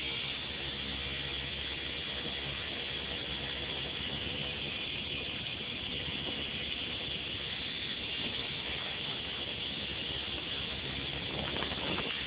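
E-sky Belt-CP V2 electric RC helicopter in flight, heard from a camera mounted on it: a steady mechanical whir of the motor, gears and spinning rotors with a high gear whine.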